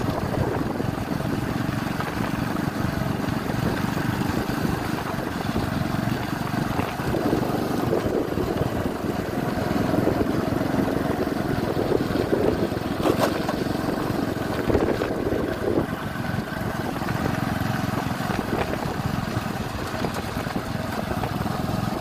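A small vehicle's engine running steadily on the move, with a continuous rumble and a brief sharp click about halfway through.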